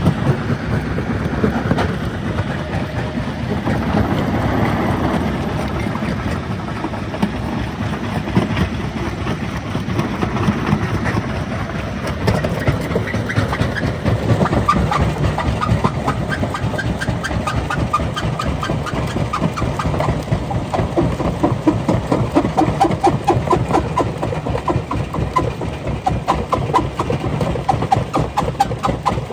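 Rock-crushing machinery running: a heavy engine with continuous rattling clatter of stone, the clatter growing denser and more rhythmic about halfway through.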